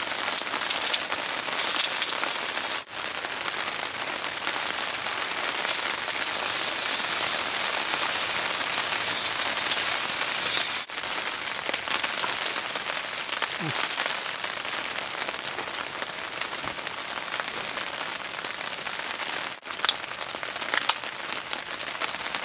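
Steady rain falling, heavier for a few seconds in the middle, with a few sharp clicks near the end.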